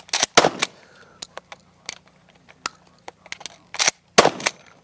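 Shotgun shots, a quick cluster near the start and another near the end, with small clicks and knocks in between as shells are loaded into the gun.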